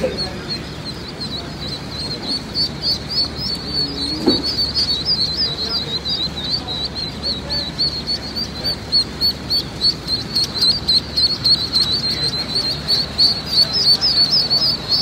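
A crowd of newly hatched Welsh Harlequin ducklings peeping without pause, many short high chirps overlapping.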